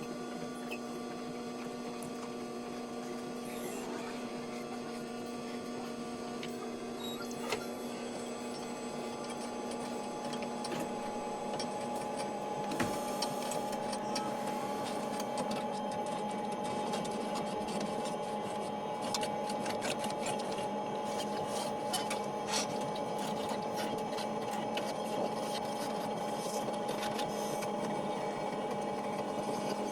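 Copy machine running: a steady mechanical hum with several held tones and light clicking. About ten seconds in, its tones shift and it grows a little louder.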